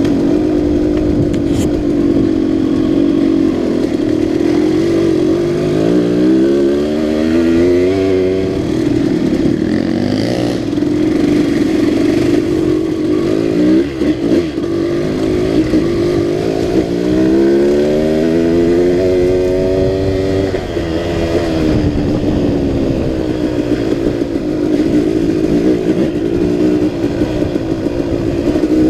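2006 KTM 200 XC-W's two-stroke single-cylinder engine running hard on a dirt trail, revving up and down with the throttle. Its pitch climbs steeply twice, about a fifth of the way in and again past the middle, with a brief drop near the midpoint.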